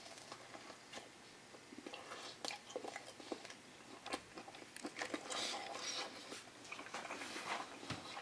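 A person biting into a sausage link in a bun and chewing it: faint, irregular clicks and smacks.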